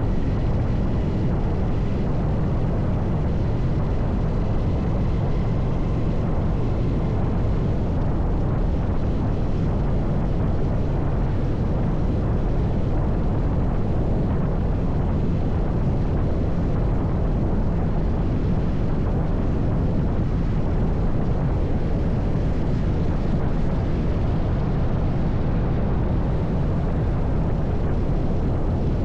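Steady low rumble of a vehicle under way, even in level throughout.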